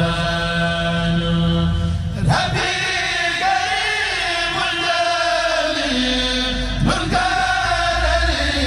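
Kourel chanting group singing a Mouride khassida (religious poem) with long held notes that step in pitch. The chanted line breaks off and restarts about two seconds in and again near seven seconds.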